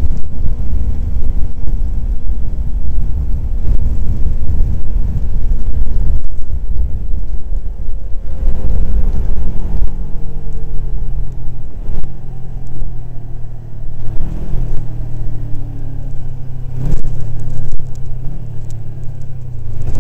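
Kawasaki Ninja 250 motorcycle riding at road speed, with heavy wind rumbling over the microphone for the first several seconds. The engine note then comes through and falls steadily in pitch as the bike slows down.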